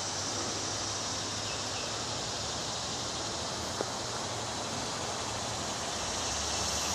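Outdoor summer ambience: insects chirring in a steady high band over a low rumble, with one faint click about four seconds in.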